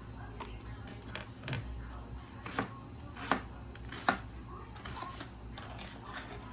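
Kitchen knife chopping vegetables on a cutting board: about a dozen irregular knocks, two of them sharper and louder near the middle.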